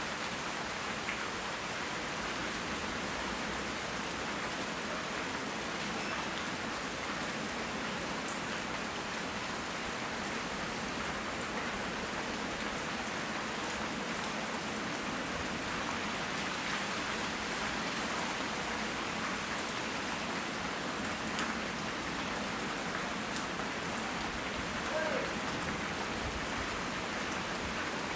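Steady rain falling, an even hiss with scattered ticks of drops striking nearby surfaces, recorded on a phone's microphone.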